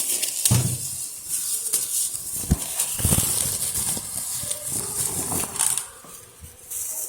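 Plastic wrap and packaging rustling and crinkling as a metal PC case is unpacked and handled. Several knocks and thumps sound through it, the clearest about half a second in and again around two and a half to three seconds in.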